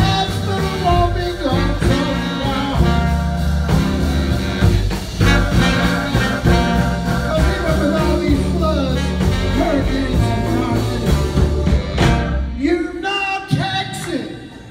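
Live blues band playing a slow blues: electric guitar with a baritone saxophone and trombone horn section over bass and a steady beat. About two-thirds of the way through the band thins out to a few separate hits and the sound drops near the end.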